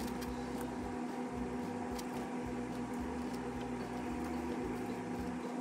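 A steady low hum runs throughout, with a few light clicks of plastic pieces from a toy train set being handled and fitted together as its bridge supports are set up.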